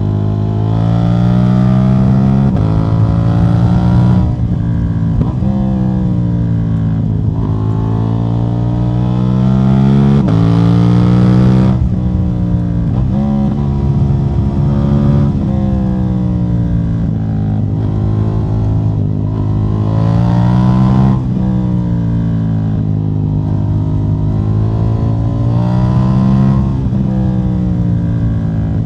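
KTM 790 Duke's parallel-twin engine with its catalytic converter removed, running loud, the revs climbing and then falling back again and again every two to three seconds.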